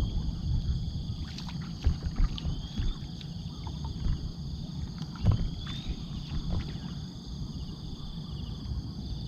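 Water sloshing and lapping around a small fishing boat, with scattered knocks and clicks, over a steady high-pitched drone. Two short rising chirps come about two and a half and five and a half seconds in.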